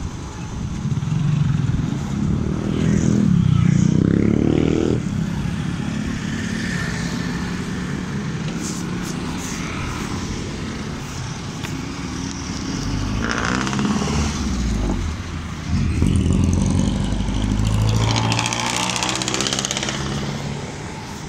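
Motorcycle engine running while riding, with road and wind noise; the engine pitch rises as it accelerates about three seconds in, and it pulls again later on.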